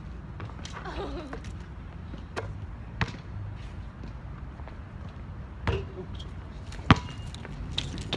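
Basketball bouncing, a few separate thuds spaced a second or more apart, the loudest near the end.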